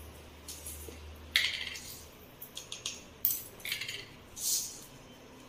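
Metal kitchen utensils clinking and scraping in a few short, sharp knocks, the loudest about a second and a half in and again past the three-second mark.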